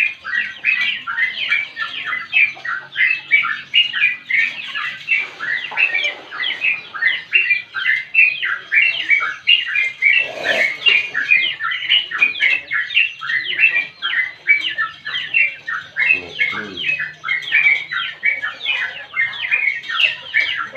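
Yellow-vented bulbul (trucukan) in long, unbroken chattering song: a rapid run of short down-slurred notes, about four or five a second, with no pause.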